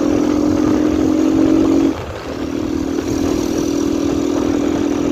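Yamaha XTZ single-cylinder motorcycle engine running under steady throttle on the move, breathing through an open intake with no air filter and a washer fitted in the exhaust. The engine note drops briefly about two seconds in, then picks up again, with wind rumble underneath.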